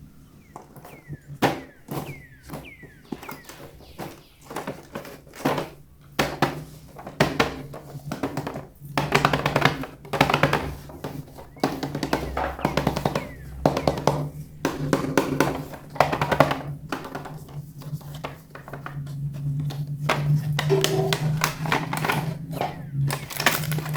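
Music with a steady low bass line and drum-like hits, with many sharp clicks and knocks throughout.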